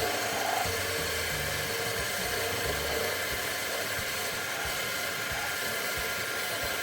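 Benchtop lathe running: a steady whine of several tones over a continuous hiss.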